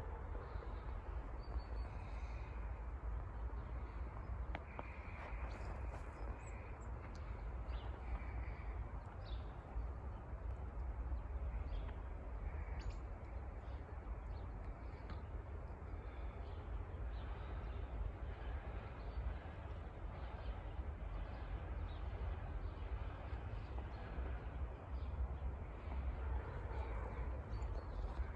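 Outdoor ambience: a steady low rumble and hiss, with crows cawing faintly a few times, mostly in the first ten seconds.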